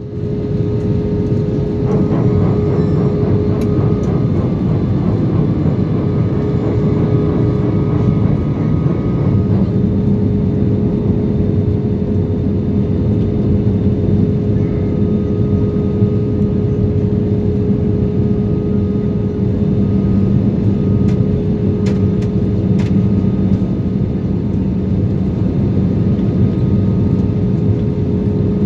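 Airliner cabin noise: a steady, loud rush of jet engine and airflow noise with a constant hum running through it.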